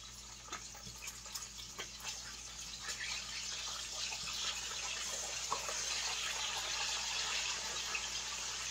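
Bacon sizzling in a frying pan: a steady hiss that slowly grows louder, with a few small pops.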